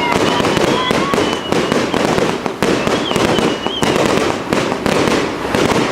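A fireworks display going off, a dense unbroken run of crackling pops and small bangs that blur together into a continuous loud crackle.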